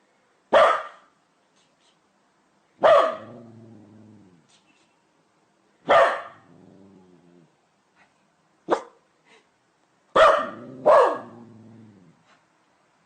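A dog barking: six separate barks a second to three seconds apart, two of them close together near the end, some trailing into a low growl.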